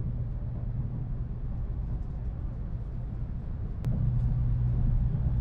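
Cabin running noise of an N700S Shinkansen just departing at low speed: a steady low rumble and hum. A single sharp click comes about four seconds in, after which the rumble is louder.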